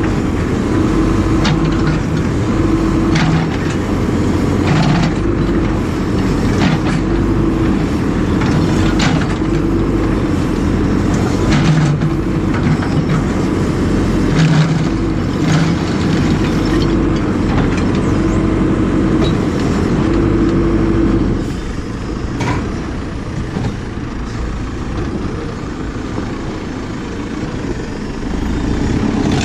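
Diesel engine of a JCB 4CX backhoe loader running at working revs under changing load, with repeated sharp knocks and clanks. About two-thirds of the way through the engine drops to lower revs, then picks up again near the end.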